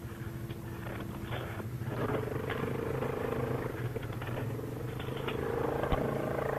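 Yamaha Grizzly ATV engine running at low throttle in mud and water, its note stepping up about two seconds in as throttle is applied and then holding steady.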